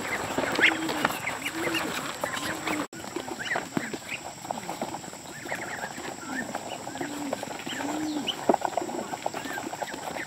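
Chickens clucking: short low clucks repeating about every half second, with higher calls among them and many light clicks throughout. The sound breaks off for an instant about three seconds in.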